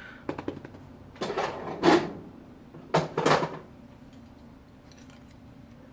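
Handling noise from working on the tool: a few short clatters and scrapes, the loudest a little under two seconds in, over a faint steady hum.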